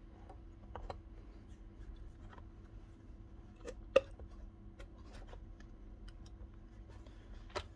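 Faint metallic clicks and taps of a rotary hammer's hammer tube being twisted and pushed into its aluminium gear housing by hand, with one sharper knock about four seconds in, over a faint steady hum.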